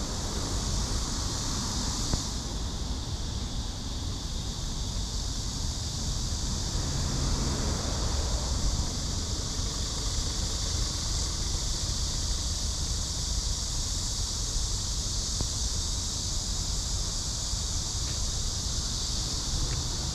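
Steady street ambience: traffic on the road and wind on the microphone, with an even high-pitched hiss over a low rumble. A few faint clicks come near the end.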